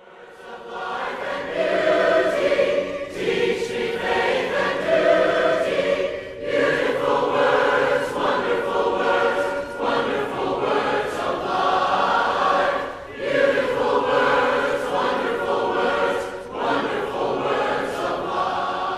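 A choir singing in harmony, fading in at the start, with short breaks between phrases.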